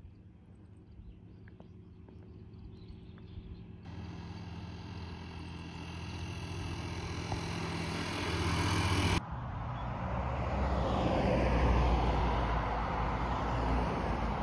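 Road traffic. A motor vehicle's engine hum grows louder from about four seconds in. After an abrupt cut, a passing vehicle's tyre and engine noise swells with a deep rumble and then eases off.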